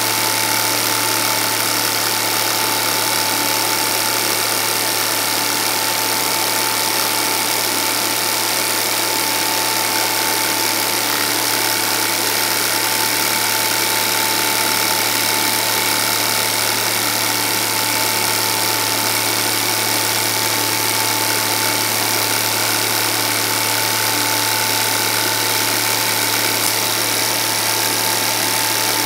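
Film projector running: a steady mechanical whir and clatter from its motor and film transport, with a low hum and a steady high tone underneath, unchanging throughout.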